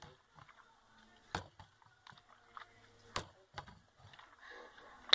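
Three sharp clicks or light knocks about two seconds apart, the last one loudest near the end, with fainter ticks in between.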